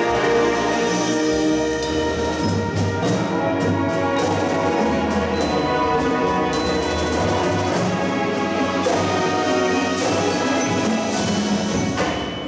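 High school marching band playing, with brass chords over drums and percussion, cutting off just before the end.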